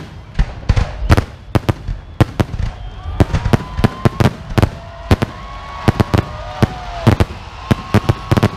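Aerial fireworks shells bursting overhead in a dense, irregular barrage, about three sharp bangs a second.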